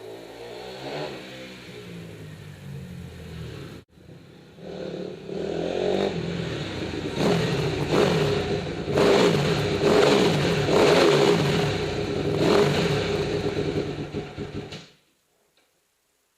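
Freshly rebuilt Honda CRF250R's four-stroke single-cylinder engine revving up and falling back again and again. It is quieter for the first few seconds, breaks off briefly about four seconds in, and cuts off suddenly near the end.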